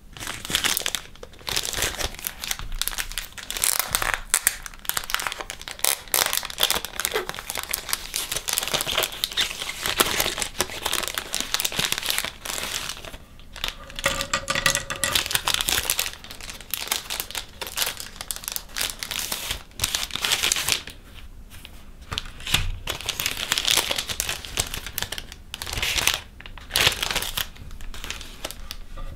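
Clear plastic packaging of a paintbrush set crinkling and rustling as it is handled and the brushes and paper insert are pulled out, with a few short pauses.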